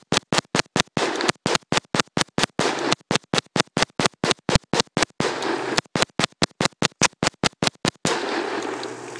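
AK-47 rifle firing a long string of rapid shots, about five a second, emptying a 40-round magazine; the shooting stops about eight seconds in, leaving a fading wash of noise.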